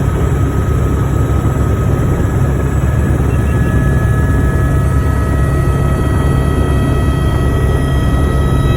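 Helicopter running steadily: a loud low drone from the rotor and engine, with a thin steady high whine over it.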